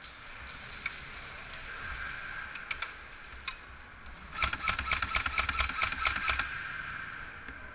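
Airsoft guns firing in an indoor arena: a few scattered shots, then a rapid string of about a dozen sharp snaps over about two seconds, roughly six a second, over steady background noise.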